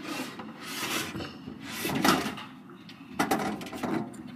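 Camera handled close to its microphone: rustling swells with a few knocks as it is held and moved, and a hand brushes across it near the end.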